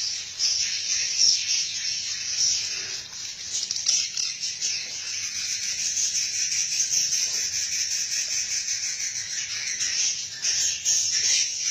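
A dense, continuous high-pitched chatter of many swiftlets calling together, full of rapid chirps and ticks.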